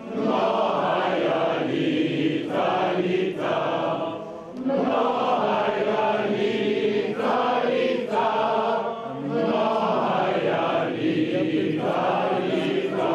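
A group of voices singing together in long, sustained phrases, with short breaks between them.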